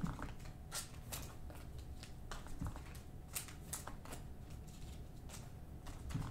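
Panini football trading cards being handled and flicked one at a time off a stack, giving faint, irregular light flicks and taps of card on card.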